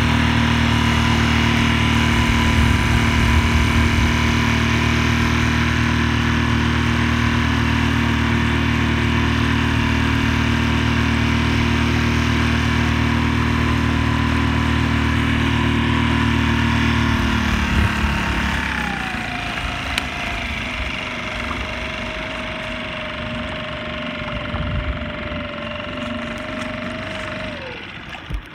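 A small boat motor runs steadily, then slows and quietens about 18 seconds in. A fainter whine carries on after that and falls away just before the end.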